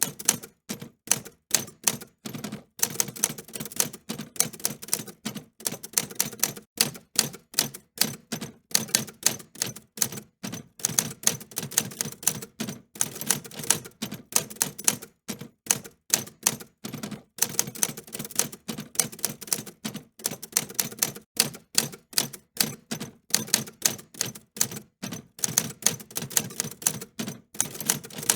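Typewriter keys being struck in quick, irregular runs of sharp clicks, several a second, with brief pauses between runs.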